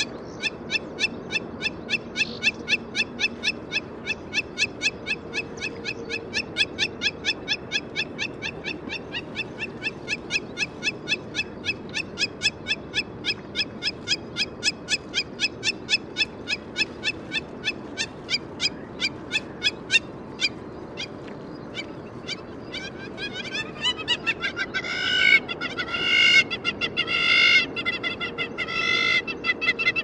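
Hamerkop calling: a long run of short, evenly spaced high notes, about three or four a second. After a short pause about twenty seconds in, the calls come back louder and fuller, in quick clusters.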